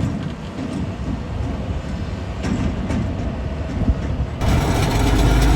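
Gusty wind buffeting the microphone over an uneven low rumble. About four seconds in it switches abruptly to the louder, steady low drone of the semi truck running.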